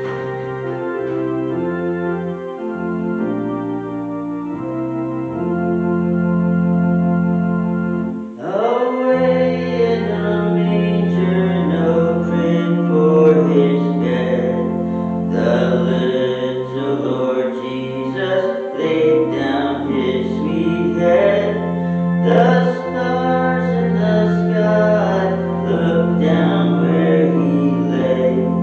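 Organ playing a hymn introduction in sustained chords; about eight seconds in, voices begin singing the hymn over the organ.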